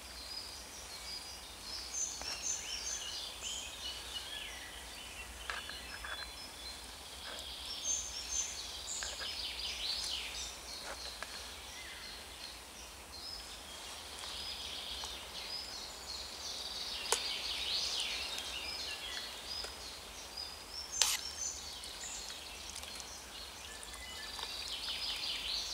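Woodland birdsong: several small birds chirping and trilling in the trees. Two sharp clicks stand out, about two-thirds of the way through and again a few seconds later.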